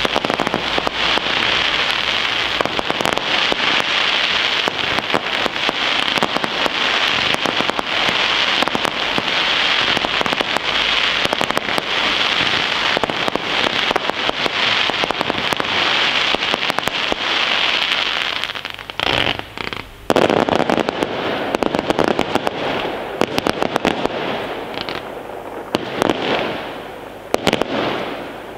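Fireworks display: aerial shells bursting in a dense, continuous rattle of quick pops and bangs. It breaks off briefly about two-thirds of the way in, then a second loud volley follows and fades near the end.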